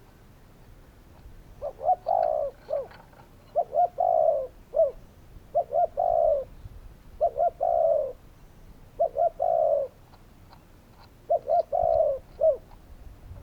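Spotted dove calling: a series of repeated coo phrases, each made of a couple of short notes and then a longer falling coo, about every one and a half to two seconds, with a brief pause about ten seconds in.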